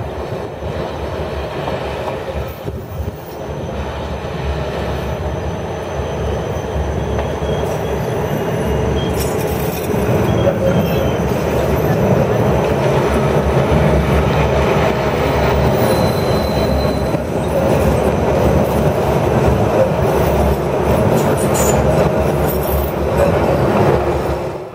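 Dresden CarGoTram freight tram rolling past on the tracks of a turning loop, its wheels running on the rails. The sound grows louder over the first ten seconds as the freight cars draw close, then holds steady.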